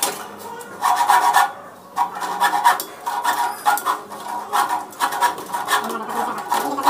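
A hand tool making rasping, scraping strokes on cable or metal, repeated irregularly about twice a second.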